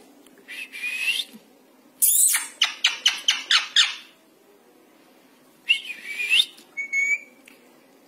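Indian ringneck parrot calling: a rising squawk-whistle, then a quick run of sharp chirps, then another rising call and a short whistle near the end.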